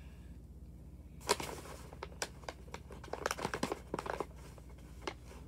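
Paper bag crinkling and rustling as a hand rummages inside it, in a run of sharp, irregular crackles that starts about a second in.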